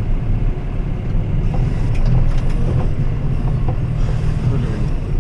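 John Deere tractor's engine running steadily under way, a continuous low rumble as heard from inside the cab.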